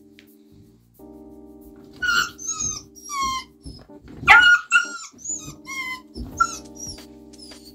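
German shepherd puppy giving a string of short, high-pitched yelps and whines, each dropping in pitch, starting about two seconds in and loudest about midway, as a kitten paws at its face during play; soft background music runs underneath.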